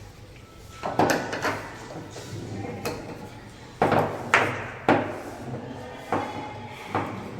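PVC pipes and plastic fittings knocking and clattering as they are handled and fitted together: about eight irregular sharp knocks, the loudest a little after the middle.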